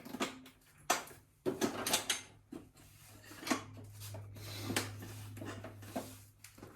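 A series of sharp knocks, clicks and clatters, as of hard objects being handled, with a steady low hum from about a second and a half in until about six seconds.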